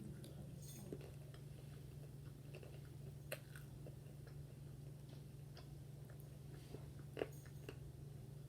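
A person chewing KFC fried chicken close to the microphone: faint mouth sounds with scattered crisp clicks and crackles, the sharpest about three seconds in and again near seven seconds. A steady low hum runs underneath.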